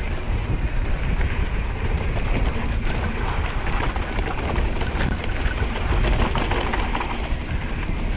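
Specialized mountain bike rolling fast down a dirt trail: steady wind buffeting on the bar-mounted microphone over the rumble of knobby tyres on dirt, with light rattles from the bike.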